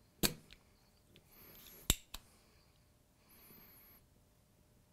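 Spring-loaded desoldering pump (solder sucker) snapping twice, sharply, with a couple of softer clicks between, as it sucks molten solder off the relay's pins on the circuit board.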